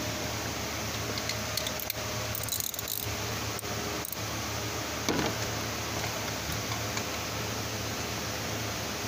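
Light metallic clicks and clinks of a ratchet being worked against the serpentine belt tensioner while it is fitted into the tensioner's centre hole, with one duller knock about five seconds in, over a steady background hum.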